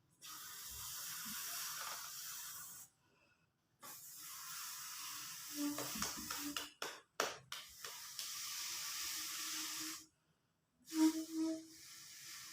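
Air hissing into a balloon as it is inflated, in four long bursts of about two and a half seconds with short pauses between them. A low squeaky tone joins the hiss near the middle and again near the end.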